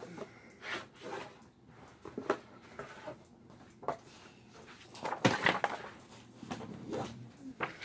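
Cardboard game pieces being handled and fitted together by hand: scattered light clicks, knocks and rustles, busiest about five seconds in.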